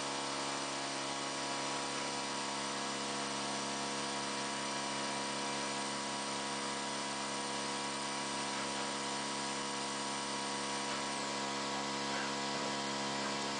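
CNC mill spindle turning a twist drill bit in a hole in a plywood board: a steady motor whine made of many held tones.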